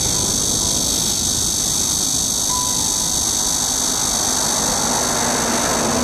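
Jet engines of a Jeju Air Boeing 737 at takeoff power as it climbs away, a loud steady rushing noise.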